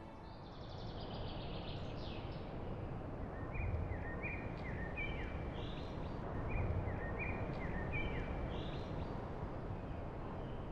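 Outdoor ambience with small birds calling: a series of short chirps and quick falling notes, repeated in little groups, over a steady low background rush.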